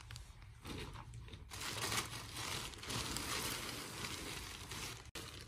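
Thin plastic shopping bag crinkling and rustling in an irregular run, mixed with the swish of cloth, as lengths of printed fabric are pulled out of it and handled.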